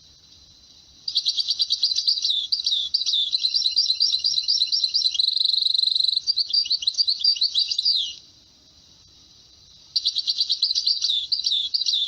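Finch song: a long run of fast, high trills and rolling phrases, breaking off about eight seconds in and starting again near the end.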